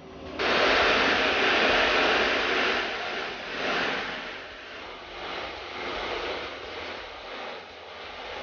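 Floatplane's propeller engine heard from inside the cabin as a loud, even rushing drone. It starts suddenly and eases somewhat after about three seconds.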